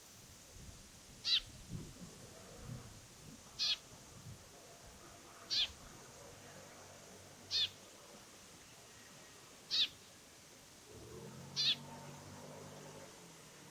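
A short, high, wavering call repeated six times, about once every two seconds: a bird calling.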